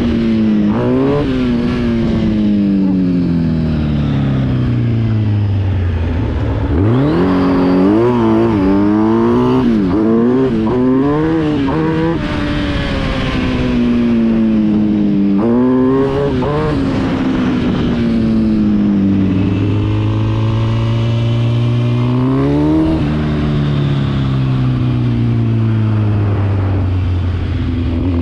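Yamaha Raptor 700 quad with a swapped-in Kawasaki Z1000 inline-four motorcycle engine, ridden hard: the engine note climbs through the revs and drops at each gear change, falls away when the throttle is eased, and gives several quick rising-and-falling blips about a third of the way in before a steadier stretch of cruising.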